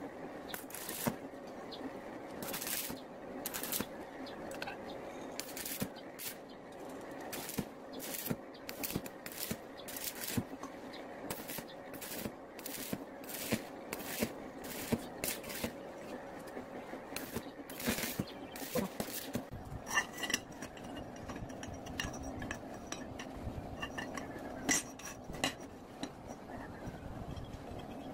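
Stick welder striking short arcs to tack steel tubes together: a run of brief, irregular crackling bursts. After about 20 seconds these stop, and light metallic clinks and scrapes follow as the steel tubes are handled.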